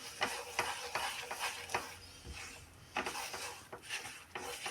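Stirring gram flour (besan) as it roasts in ghee in a frying pan: a utensil scraping and clicking irregularly against the pan bottom.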